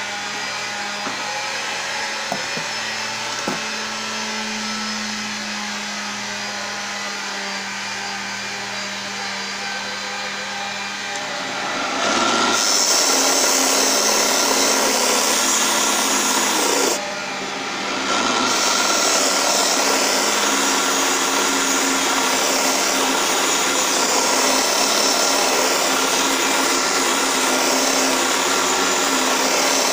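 Small benchtop wood lathe's motor running steadily with the wooden workpiece spinning. About twelve seconds in, sandpaper is pressed against the spinning wood, adding a much louder, steady rasping hiss that stops for a second or two about five seconds later and then carries on.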